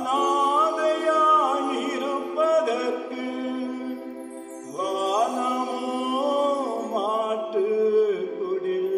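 A man singing a Tamil devotional bhajan into a handheld microphone, holding long notes that slide between pitches.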